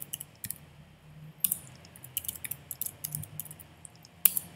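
Typing on a computer keyboard: scattered key clicks at an uneven pace, with one sharper click near the end, over a faint low hum.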